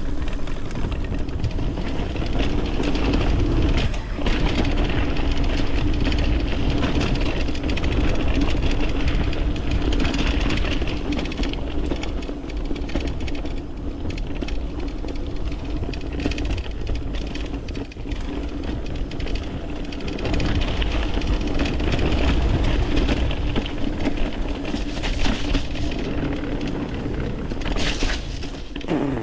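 Mountain bike riding down a dirt trail: tyres rolling and rattling over rough ground, with a steady buzz underneath and heavy wind rumble on the microphone. The noise dies down right at the end.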